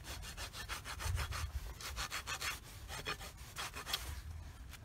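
Hoof rasp drawn back and forth across a horse's bare hoof in quick rasping strokes, about four or five a second, easing off near the end.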